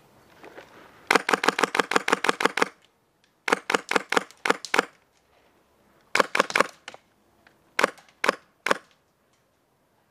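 Airsoft electric gun (AEG) firing full-auto: a long rapid burst of about a dozen shots, two shorter bursts, then three single shots near the end.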